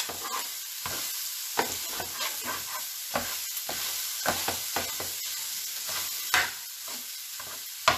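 Pork, onion and garlic sizzling in a skillet while a spatula stirs, clicking and scraping against the pan, with a louder knock about six and a half seconds in.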